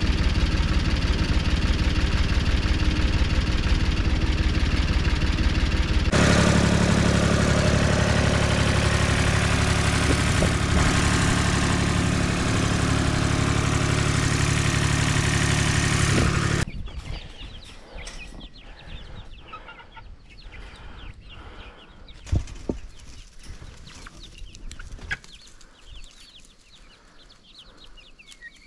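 A Ford farm tractor's engine running steadily under load while it carries a roof frame on its front loader, its sound changing abruptly about six seconds in. At about seventeen seconds the engine cuts off, leaving a much quieter stretch of young chickens clucking faintly among scattered small clicks.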